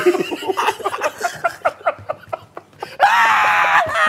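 Men laughing hysterically in quick short bursts. About three seconds in, one breaks into a loud, long, high-pitched scream of laughter.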